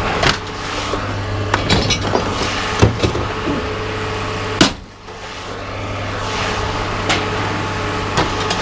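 Scrap being unloaded: scattered metallic knocks and clanks over a steady low machine hum, with one loud bang about four and a half seconds in.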